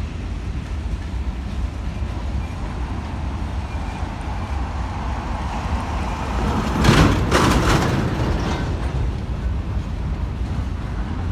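Freight train's covered hopper cars rolling past, a steady low rumble, with a short cluster of loud sharp clacks about seven seconds in.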